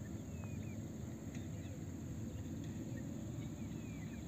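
Quiet hilltop ambience: a low steady rumble with scattered short, falling bird chirps.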